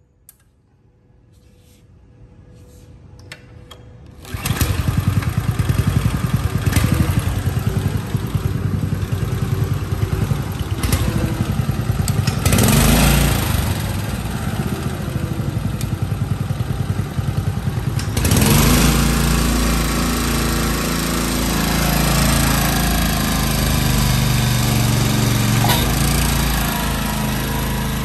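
Small gasoline engine of a hydraulic pump unit being started by hand, catching about four seconds in and then running steadily. About eighteen seconds in, its sound turns heavier and lower.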